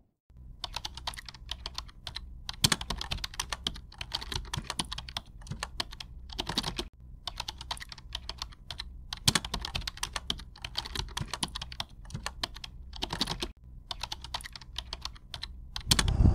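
Computer keyboard typing sound effect: rapid clicking in runs broken by short pauses, over a steady low hum.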